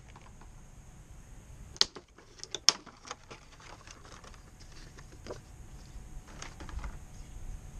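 Hard plastic blister pack being opened and handled. There are a few sharp plastic clicks and cracks around two to three seconds in, the loudest near the three-second mark, then lighter crinkling and taps as the parts are taken out.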